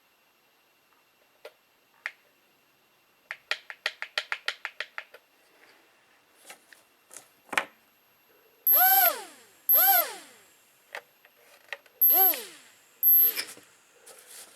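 Hubsan X4 H107L micro quadcopter's small motors spinning up in four short throttle bursts, each whirring down in falling pitch as it slows. The motors run: the freshly soldered battery wire is working. Before them comes a quick run of about a dozen small clicks.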